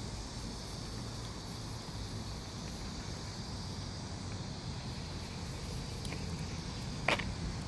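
Steady low outdoor rumble with a single short, sharp click about seven seconds in.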